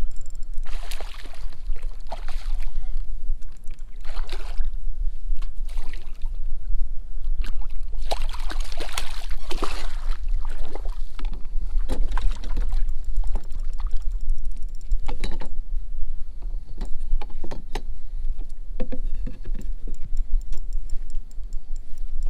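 Water splashing in irregular bursts at the side of a kayak as a hooked redfish is fought in, over a steady low rumble. The heaviest splashing comes in the middle.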